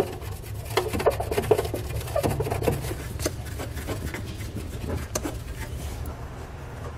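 Thermoplastic truck bed mat being pulled back and handled, rubbing and scuffing against the aluminum truck bed floor, with a hand rubbing and pressing on the floor. It comes as a run of short scratchy scuffs that thin out after about five seconds.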